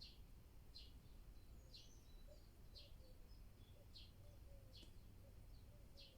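Faint bird calls: a single short, high chirp repeated about once a second over soft outdoor background noise.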